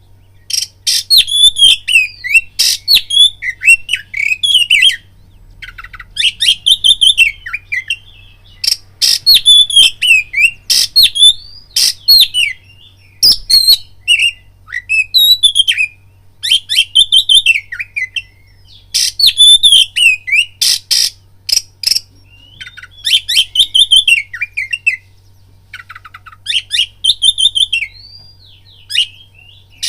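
Oriental magpie-robin (kacer) singing loud, varied whistled phrases of a second or two each, with short pauses between, mixed with sharp clicking and rattling notes: a lure song for rousing a kept male magpie-robin to sing.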